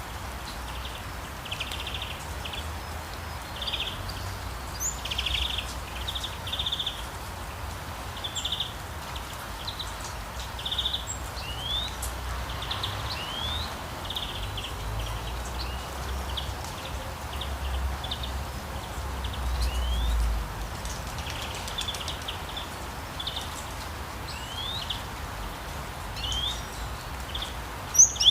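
Steady rain hiss with birds calling again and again over it: short trills and quick upward-sweeping chirps. A low rumble underneath swells briefly about twenty seconds in.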